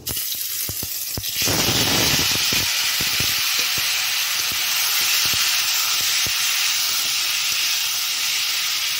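Jujubes and chopped tomato tipped into hot oil in a thin metal wok (kadai), setting off a loud, steady sizzle that swells about a second and a half in. A metal spatula knocks and scrapes against the pan as the pieces are stirred.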